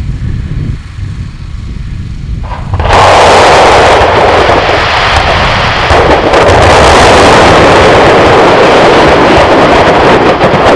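Container of 150 mm colour firework shells going off: low wind rumble on the microphone, then about three seconds in a sudden, very loud blast that keeps going as a dense, continuous roar of bursting shells, pinned at the top of the recording's range.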